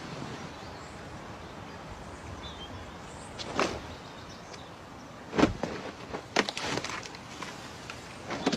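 Steady background noise broken by a few sharp knocks and thumps: one about three and a half seconds in, a louder one about five and a half seconds in, then several smaller knocks shortly after.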